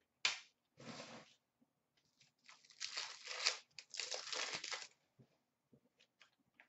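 Trading-card pack wrapper being torn open and crinkled by hand: two short rips in the first second or so, then a longer run of crinkling from about two and a half to five seconds in.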